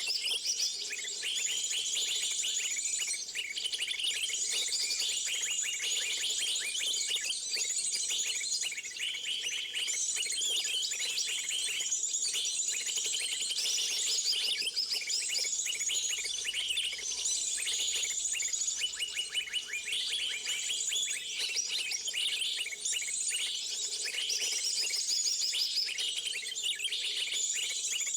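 Many small birds chirping and trilling at once: a dense, continuous chorus of rapid high-pitched calls.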